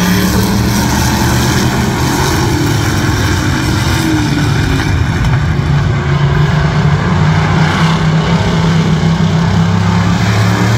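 Engines of a pack of figure-eight stock cars running at racing speed around the track, a loud, steady engine noise throughout.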